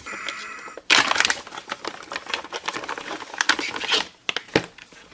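Packaging crinkling and rustling as a part is unwrapped: a short, even rasp for about the first second, like plastic or tape being pulled, then dense irregular crackling.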